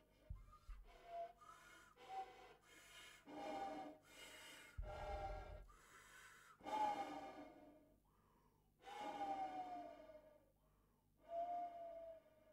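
Soprano saxophone played in a breathy, airy improvised style: a string of short, separate notes with gaps between them, some sliding downward in pitch, the longest a falling note near the end.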